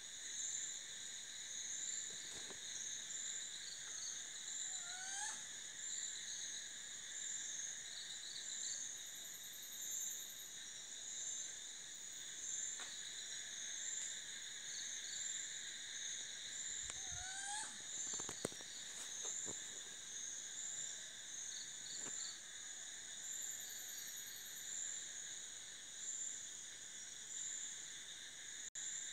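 Travancore flying squirrel calling twice, about five seconds in and again about seventeen seconds in, each time with a short upward-sliding call, over a steady chorus of night insects trilling.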